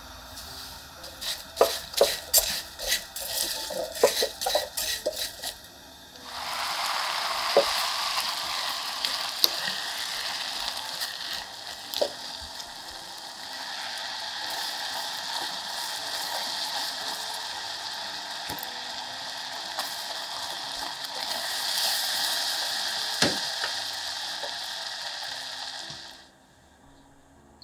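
A quick run of sharp kitchen taps and clicks, then from about six seconds in a steady sizzling hiss that stops abruptly near the end.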